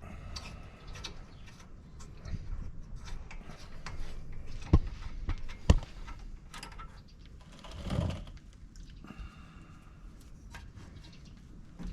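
Hand tools clicking and clinking against the rear brake caliper and its bolts during brake work, with two sharp metal knocks about five and six seconds in and a short scraping sound near eight seconds.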